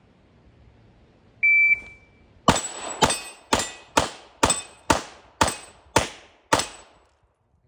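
A shot timer's start beep, one short high tone, then a CZ Shadow 2 9mm pistol fired rapidly at steel dueling-tree plates: about nine shots roughly two a second, each with a brief ring.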